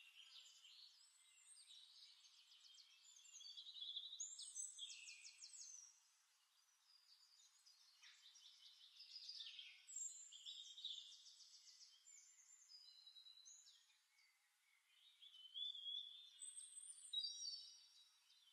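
Faint birdsong: scattered chirps and quick trills, coming in three short spells about a third, half and four-fifths of the way through.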